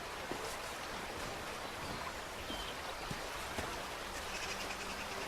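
Steady rushing of running water, an even outdoor wash with a few faint knocks in it.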